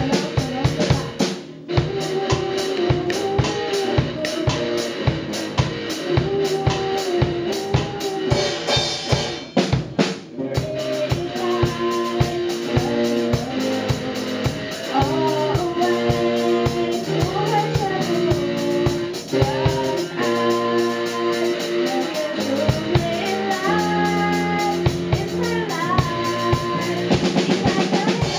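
Live pop band: a drum kit keeps a steady beat on bass drum, snare and cymbals under electric bass, electric guitar and a girl's lead vocal. The beat breaks off briefly about a second and a half in and again about ten seconds in, with cymbal crashes near the end.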